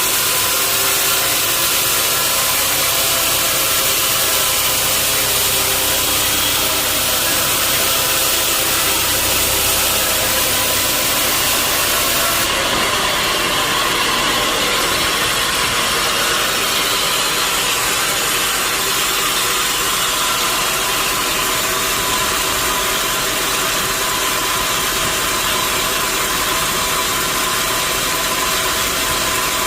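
Sawmill machinery running steadily with a loud engine-like drone, its character changing abruptly about twelve seconds in.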